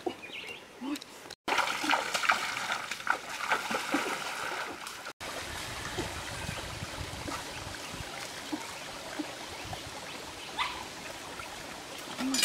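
Water splashing in a shallow rocky stream, then after a cut the steady run of water trickling over stones.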